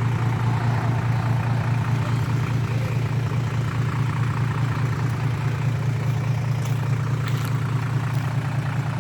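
Truck engine running steadily through a freshly modified exhaust, its silencer drilled and fitted with a baffle, giving an even low hum with no revving.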